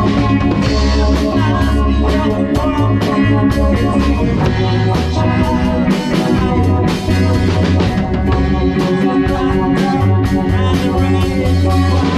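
A rock band playing live: drum kit and electric guitars, with a singer at a microphone.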